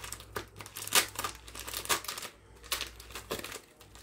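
Plastic bubble packaging crinkling and crackling in the hands as it is unwrapped, in irregular sharp crackles, the loudest about a second in.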